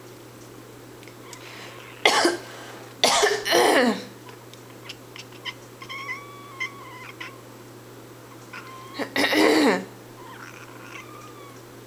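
A person coughing in loud fits, about two seconds in, again at three seconds, and once more near the end. In between, a house cat answers with fainter, short complaining meows.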